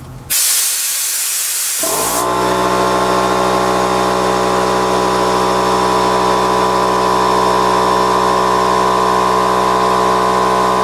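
A brief loud hiss of air, then a Stanley 6-litre air compressor's motor and pump start and run steadily while charging the tank. It is loud, about 90 decibels at a metre.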